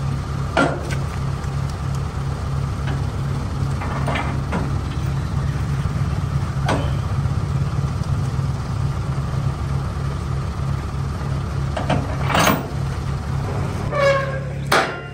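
A vehicle engine idling steadily with an even low throb, with a few sharp metal clanks as a trailer drawbar is handled and coupled to a truck's tow hitch.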